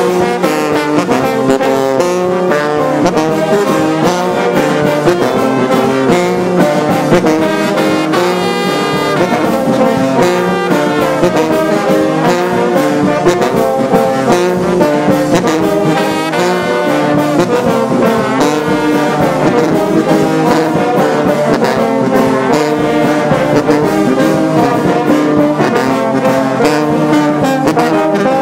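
Brass band playing, led by sousaphones and euphoniums, heard at close range. The low brass carries dense moving harmonies without a break.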